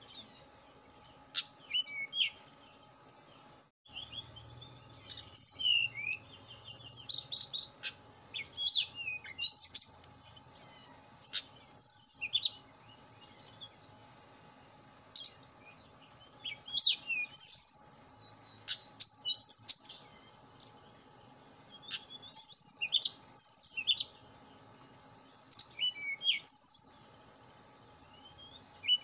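Tledekan gunung (hill blue flycatcher type) singing: bursts of high, sweet whistled notes, quick glides and short trills, coming in clusters every few seconds with short pauses between.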